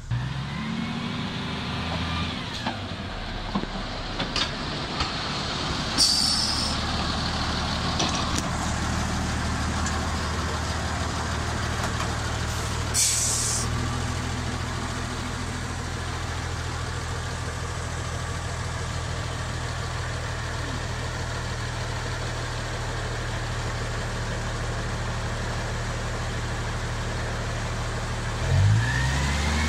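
MÁV Mk48 narrow-gauge diesel locomotive idling steadily, with two short hisses of released air about six and thirteen seconds in. Near the end the engine revs up as the locomotive pulls away.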